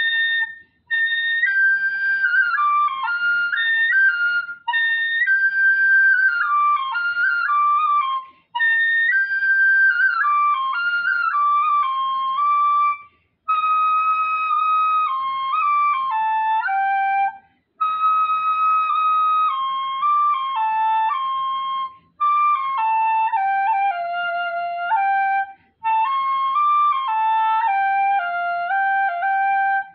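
Solo shinobue (Japanese transverse bamboo festival flute) playing a shishimai lion-dance melody. Clear high notes in phrases of about four seconds that mostly step down in pitch, with a short breath pause between phrases.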